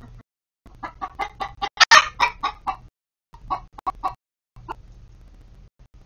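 Hen clucking in a quick run of calls, about six a second, building to a loud squawk about two seconds in, then a few scattered clucks.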